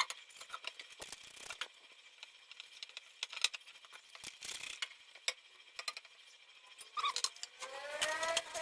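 Scattered small clicks and taps from handling the parts of a desktop PC during cleaning. Near the end a pitched tone comes in, rising as it goes.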